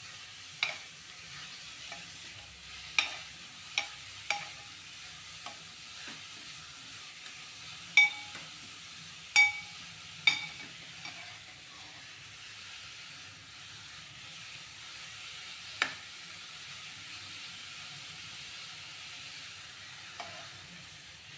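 Grated carrot frying in ghee in a metal pot, with a steady sizzle while a spoon stirs it, striking the pot with sharp ringing clinks about ten times, loudest about eight seconds in. The carrot is being fried well until its raw smell is gone, before milk goes in for a carrot sweet.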